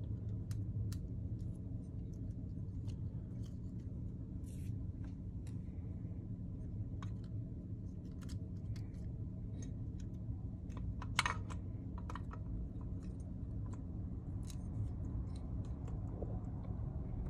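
Scattered light clicks and taps of small metal parts being handled and fitted on an Autolite 2100 carburetor body, with one sharper click about eleven seconds in, over a steady low hum.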